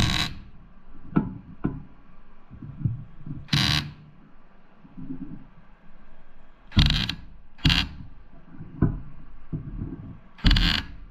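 MIG welder laying short tack welds on sheet steel at a butt joint: about five brief, loud crackling arc bursts a few seconds apart, with light knocks between them as the gun is moved to the next spot.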